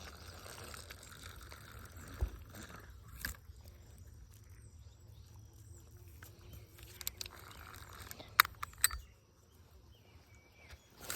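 Small Zebco push-button spincast reel being cranked to retrieve a lure: a low steady whir with a few sharp clicks, stopping about nine seconds in.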